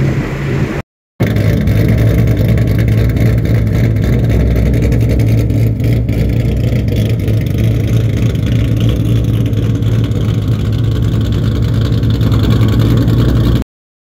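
Ford Mustang GT's Coyote 5.0 V8 running loudly and steadily through long-tube headers and an X+H pipe with no mufflers or resonators. After a short break of silence about a second in, it runs on evenly and cuts off abruptly near the end.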